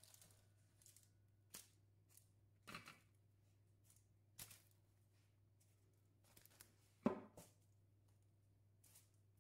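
Faint, scattered handling sounds: a cotton tea towel pulled off a baking tray of baked brioche buns, then soft rustles and light knocks as the buns are touched and lifted. One sharper knock comes about seven seconds in.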